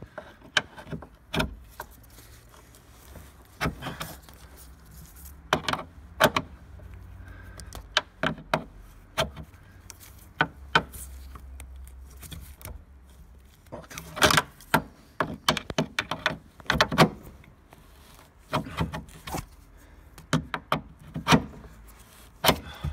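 Scattered sharp clicks and clinks of hand tools working a seized tailgate strut bolt, some coming in quick clusters, over a low steady hum.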